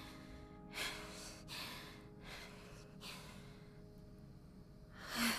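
A girl breathing heavily after an angry outburst: a few soft huffs fading away over the first three seconds, then a louder sigh near the end.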